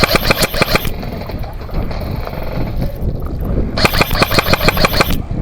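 Airsoft gun firing full-auto bursts at about ten shots a second: one burst lasting about a second at the start, another from about four seconds in until just before the end.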